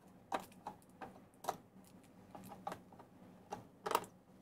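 Hard plastic parts of an R2-D2 model kit clicking and tapping as they are handled and taken apart. About ten irregular sharp clicks, the loudest a little before the end.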